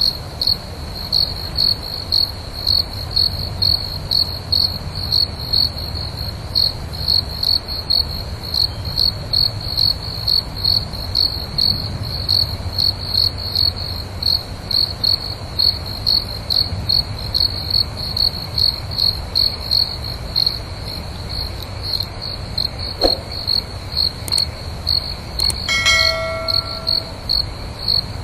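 Crickets chirping in a steady, regular rhythm of high-pitched pulses over a low background rumble. A brief ringing tone sounds about two seconds before the end.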